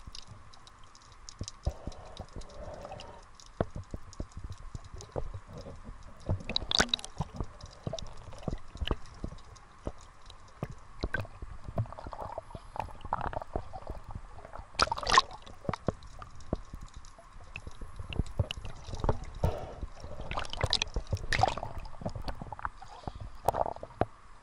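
Sea water sloshing and slapping against a waterproof camera at the surface as it dips under and back out of the waves, with constant crackles and a few louder splashes.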